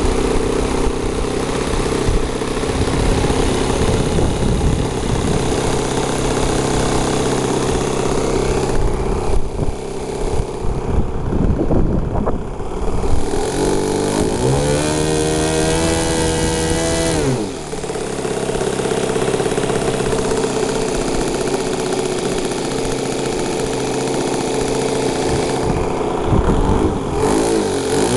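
Small engine of a radio-controlled model plane running with its propeller. Its pitch climbs sharply about halfway through, holds high for a few seconds, drops back to a steady lower speed, and begins climbing again near the end.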